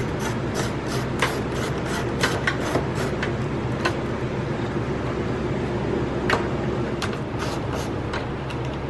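Socket ratchet clicking in short runs of sharp clicks, about three a second, as the 10 mm bolts holding a side mirror are loosened. A steady low hum runs underneath.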